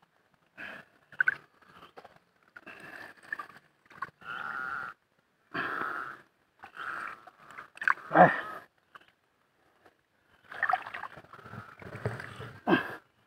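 Muddy water sloshing and gurgling in short, uneven bursts as an arm gropes deep in a flooded crab burrow, with hard, wheezy breaths close to the water.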